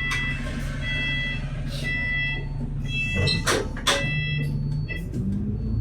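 Inside a diesel bus: the engine hums at idle while short electronic beeps repeat about once a second. Near the middle there is a brief clatter of knocks, and near the end the engine note rises as the bus pulls away.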